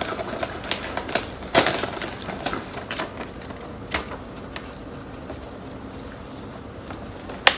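Plastic snack packaging, a chip bag, crinkling and crackling as it is handled, with scattered sharp clicks; the strongest crackles come about a second and a half in and near the end.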